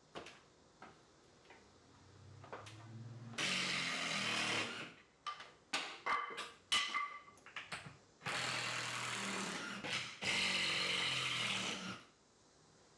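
Cordless drill running in two spells, one of about a second and a half and a later one of about four seconds, with short spurts and clicks between them, driving screws out of the ceiling.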